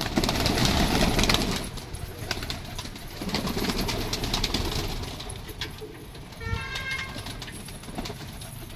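Pigeons' wings flapping and clattering as the birds take off and flutter around inside a wire loft. It comes in two bursts: the first during the first two seconds, the second from about three to five seconds in.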